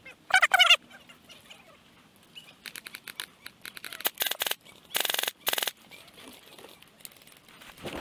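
Airsoft rifles firing rapid bursts of shots: scattered fire a few seconds in, then two loud bursts about five seconds in, and more near the end. Near the start, two short honking calls.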